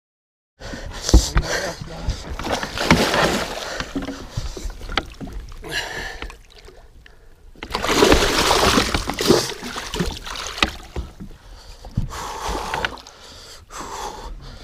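A large muskie thrashing at the surface beside the boat, throwing water in irregular splashing bursts, while it is being netted. The sound cuts in after about half a second of silence, and the heaviest splashing comes about eight seconds in.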